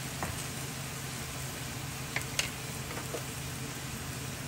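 Thin slices of pork sizzling steadily in hot oil in a frying pan, with a few small pops and spits.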